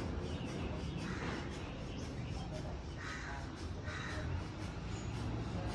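Crows cawing several times, short separate calls, over a steady low background rumble.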